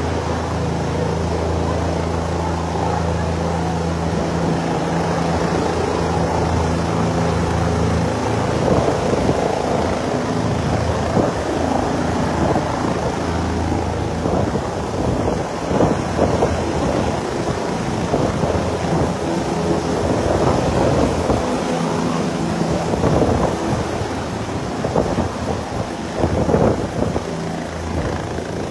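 Helicopter coming in to land, its rotor and turbine running with a steady low beat. After about eight seconds the rotor downwash buffets the microphone in heavy gusts that largely cover the rotor sound.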